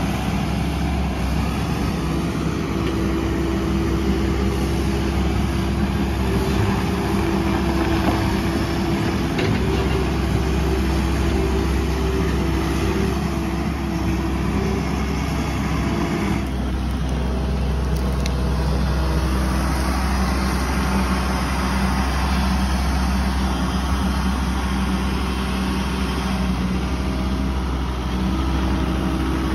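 Takeuchi TB257FR mini excavator's diesel engine running steadily, with a shift in its sound about halfway through.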